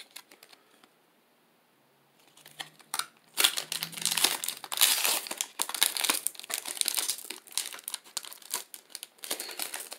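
Pokémon trading card booster pack wrapper crinkling and tearing as it is opened by hand, starting about two seconds in and going on as a dense, continuous crackle.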